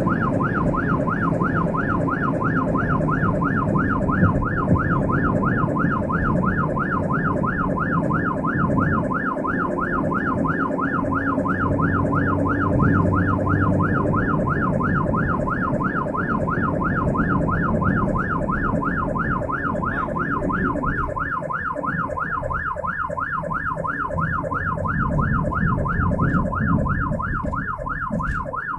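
Ambulance siren on a rapid yelp, its pitch sweeping up and down several times a second without a break. It is heard from inside the ambulance cab over steady engine and road rumble.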